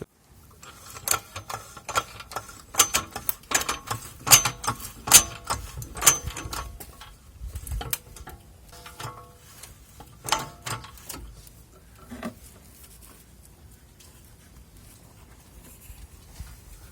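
Irregular metallic clanks and clicks as a jack is set under the van's front suspension arm and tools are handled, many sharp knocks with a short ring through the first twelve seconds, then it goes quiet apart from faint low background.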